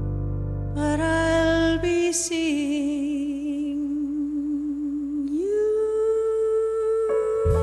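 A female cabaret singer holds long notes with vibrato over a low sustained piano and bass chord. The low chord drops out about two seconds in, and about five seconds in the voice rises to a higher note and holds it.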